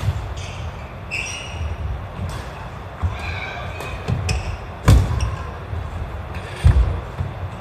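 Badminton play in a reverberant gym hall: racket strikes on the shuttlecock and feet thudding and squeaking on the wooden court floor. Two sharp knocks, about five and seven seconds in, are the loudest.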